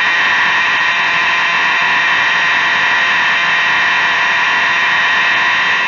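Federal Signal 4050D APMS fire alarm horn sounding continuously: a steady, unbroken, harsh buzzing tone rich in overtones. It is a bit quiet for this horn but still working.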